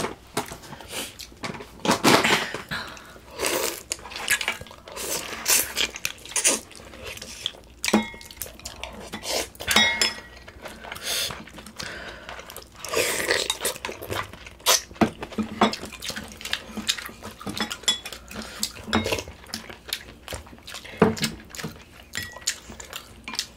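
Spoons and chopsticks clinking and scraping against bowls and the stew pot during a meal of pork-bone stew: many short, irregular clicks and knocks, some with a brief ring, with softer eating noises between them.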